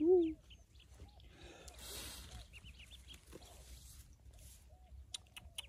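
Pekin ducklings peeping in the nest: scattered short, high, falling peeps. A brief louder, lower call comes at the very start, there is a soft rustle around two seconds in, and a few sharp clicks come near the end.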